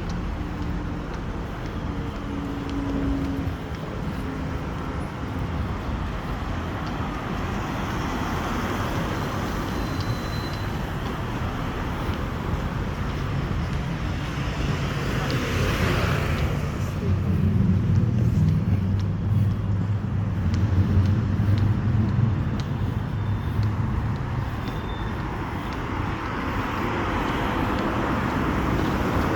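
Road traffic noise: one vehicle passes about halfway through, followed by a low engine hum for several seconds.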